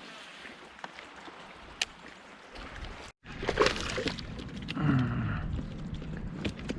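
Water splashing and sloshing around a small fishing boat, with a few sharp knocks. It is faint at first, then louder after a brief cut about three seconds in.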